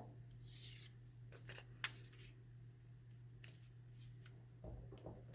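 Faint rustling and rubbing of paper strips being folded over one another by hand, with a few soft ticks.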